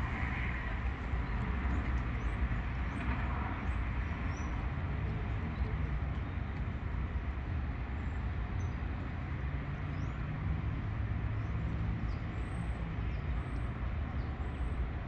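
Steady low rumble of distant traffic, with faint scattered high ticks.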